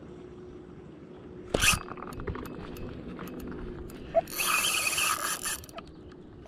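Spinning reel being worked: a sharp swish about one and a half seconds in, scattered small clicks, then the reel's handle cranked in a mechanical, ratcheting whir for about a second and a half near the end.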